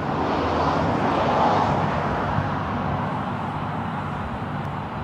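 Fast train passing by: a rushing noise that swells about a second and a half in and then slowly fades.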